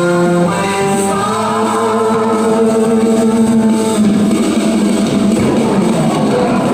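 Electric guitar played through a Kokko mini distortion pedal: held distorted single notes, one wavering with vibrato about a second in, then a denser, grittier texture of chords from about four seconds.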